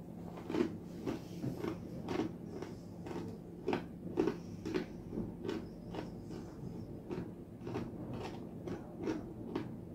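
A man chewing a mouthful of dry fried chickpeas close to the microphone, a faint crunch about twice a second. The chickpeas are softer than he expected.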